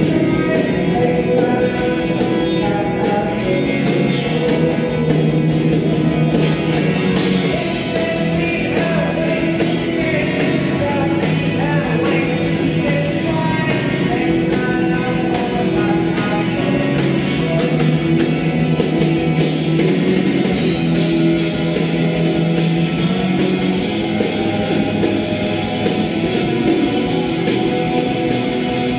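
Live indie-rock band playing a song: a singing voice over electric guitars, keyboards and a drum kit, steady and loud throughout.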